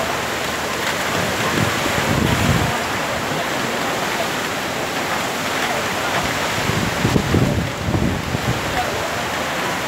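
Rain pouring steadily in a windstorm, with strong gusts buffeting the microphone twice, about two seconds in and again past the middle.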